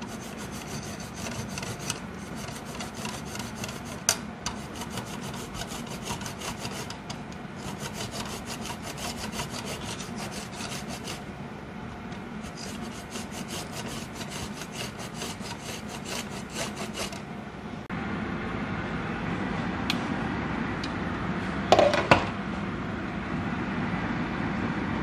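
Lime zest being grated: the lime's peel rasps against the fine teeth of a stainless-steel box grater in quick strokes, with short pauses. About 18 s in, the sound gives way to a steady hiss from the pan of simmering coconut-milk sauce, with a few sharp knocks near 22 s.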